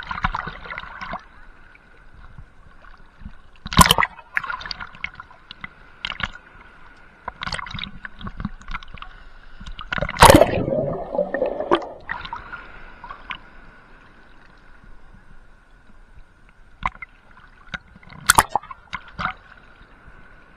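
Sea water sloshing and gurgling against a waterproof action camera bobbing at the surface, broken by sharp splashes about 4, 10 and 18 seconds in; the one about 10 seconds in is the loudest, as a wave washes over for a second or two.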